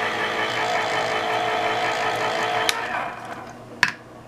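Electric can opener's motor running steadily as it cuts around a small steel can, then stopping with a click about two-thirds of the way in. A sharp click follows near the end.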